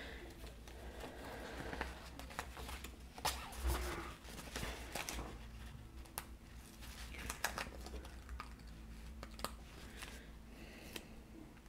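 Quiet rustling and crinkling of printed sticker-paper sheets being handled and shuffled, with scattered light clicks.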